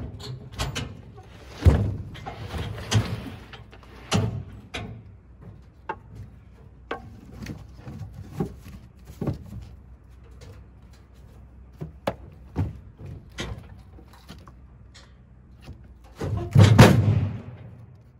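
Heavy white oak rounds being knocked and rolled across a wooden trailer deck with a Log Rite hookaroon: a string of dull thumps and knocks, then a louder, longer scrape and thud near the end as a round goes into the tractor's steel loader bucket.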